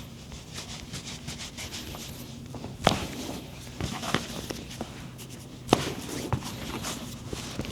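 Scattered light taps and knocks of handling, with two sharper knocks about three and six seconds in, over a steady low hum.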